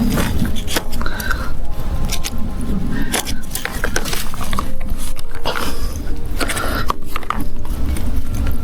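PVC irrigation pipe and fittings being handled and pushed together: irregular small clicks and knocks over a steady low rumble.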